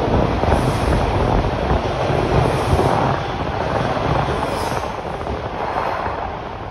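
Toronto subway Bombardier T1 train running out of the station, a steady rumble that slowly fades.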